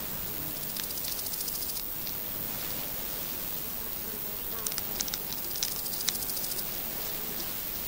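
Baby hedgehogs chewing hard food, heard as quick runs of small crunching clicks. One run comes about a second in and another from about five to six and a half seconds in.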